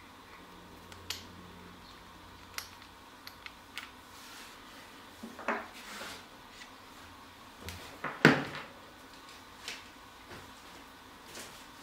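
Scattered clicks and light knocks of hard plastic parts being handled and fitted together, with a louder knock about eight seconds in.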